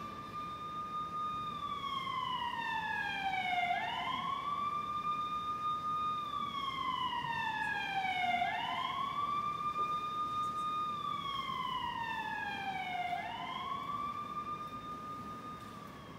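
Siren sound effect played over a theatre's speakers: a slow wail that holds high, slides down and sweeps quickly back up about every four and a half seconds, three times, fading near the end.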